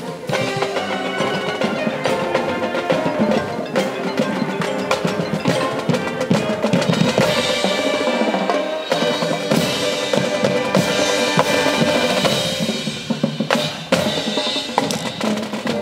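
Marching band playing: brass horns including sousaphones and trumpets over a drumline of snare and tenor drums.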